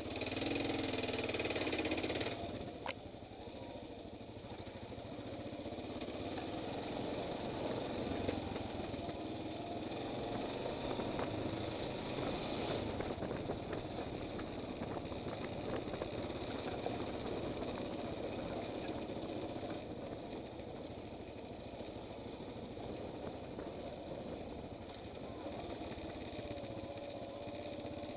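Motorcycle engine running as the bike rides down a rough dirt trail, its pitch rising and falling with the throttle, heard through a helmet-mounted camera.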